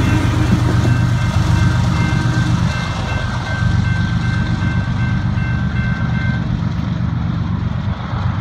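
Rear EMD SD70ACe diesel locomotives of an empty coal train passing slowly and moving away: a steady deep engine rumble with rolling wheel noise, easing slightly toward the end. A faint high whine sounds on and off until about two-thirds of the way through.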